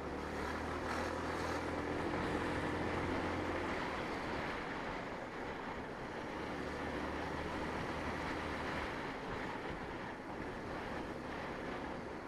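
Sinnis Shuttle scooter's engine running at a steady cruise, a low hum under the rush of wind and road noise on the rider's camera microphone. The hum fades somewhat after about nine seconds.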